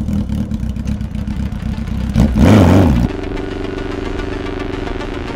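Yamaha XJR1300's air-cooled inline-four engine, just fired up and running, given one louder throttle blip a little after two seconds in. A little past three seconds the sound cuts abruptly to a steadier, even drone.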